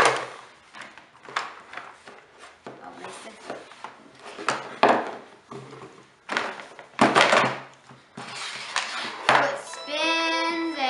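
Plastic toy pieces knocking and clattering on a tabletop, a series of sharp knocks with rustling between them.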